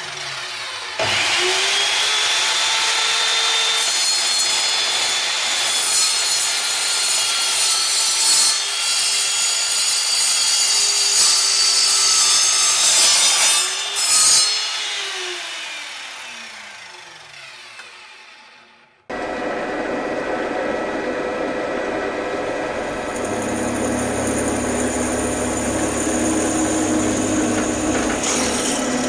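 Electric mitre saw starting about a second in and cutting through steel square tubing with a steady high whine, then the blade spinning down with a falling pitch for several seconds. After a sudden cut, a drill press runs steadily, drilling into steel box section.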